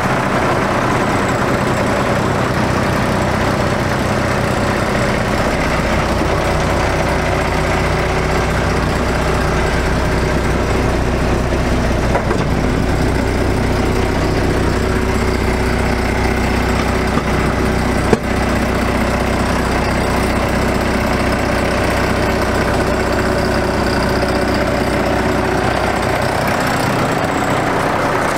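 International DT466 inline-six diesel engine of a 1988 International S1900 truck idling steadily, with a single sharp click about two-thirds of the way through.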